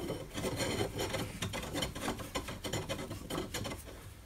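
Threaded end-stop bar scraping and clicking as it is slid into its socket in a benchtop metal bandsaw's base, a run of irregular rubbing scrapes that fades toward the end.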